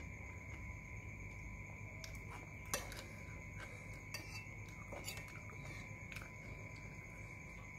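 A metal spoon clinking and scraping against a ceramic soup bowl: a scatter of light clicks, the loudest a little under three seconds in, over a faint steady high hum.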